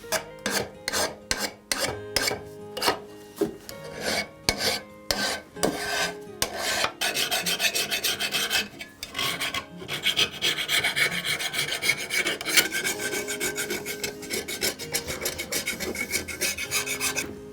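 Hand-worn abrasive strokes on a part of an old hand plane, a rasping scrape. For about seven seconds come separate strokes, roughly two a second, then they turn into a quicker, steadier run of rapid back-and-forth strokes.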